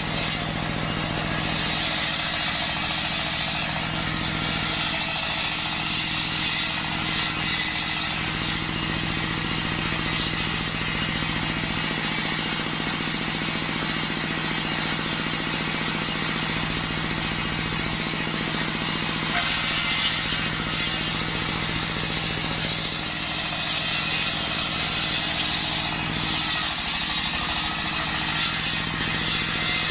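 Large circular saw bench, belt-driven by a stationary engine, running steadily while its blade rips a waru log lengthwise. The hiss of the blade in the wood swells a few seconds in and again past twenty seconds, over the steady engine note.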